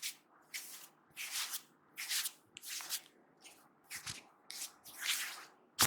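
Hands rubbing over a person's hair and scalp during a head massage, in quick swishing strokes about two a second, with one sharp click near the end.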